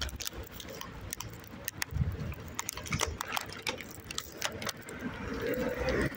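Handling noise from a phone carried while walking: scattered irregular clicks and rustles over a low rumble.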